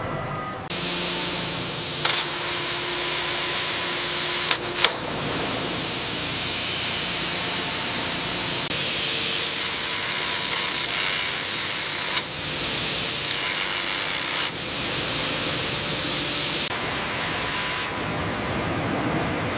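Sawmill machinery running: a steady noisy rush of saws and conveyors that changes abruptly several times, with a sharp knock near 5 seconds.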